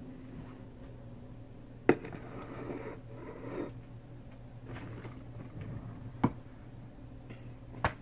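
Kitchen handling noises: a sharp knock about two seconds in as a ceramic plate with a glass bowl on it is set down on the countertop, then rustling and two more sharp knocks later on, over a steady low hum.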